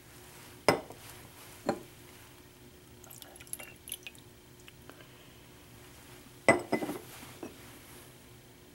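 Lab glassware knocking and clinking on a benchtop as standards are poured from glass graduated cylinders into small glass beakers: two sharp knocks in the first two seconds, a cluster of knocks about two-thirds of the way through, and faint trickling and ticks of liquid in between.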